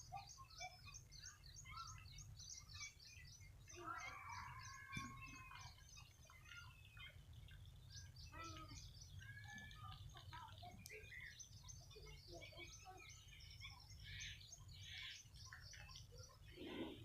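Faint chorus of wild birds chirping and calling, with many short, overlapping high calls and trills throughout. A steady low rumble runs underneath.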